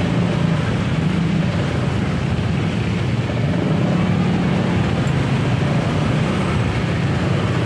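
Motor scooter engines running in a tight, slow-moving jam of motorbikes: a steady low engine hum under general street traffic noise.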